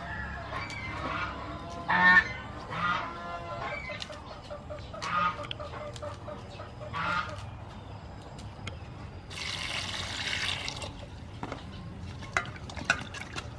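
Domestic fowl calling in short honking calls about two, three, five and seven seconds in. There is a brief rush of noise about ten seconds in, and light clicks near the end as hands work lettuce in a steel bowl.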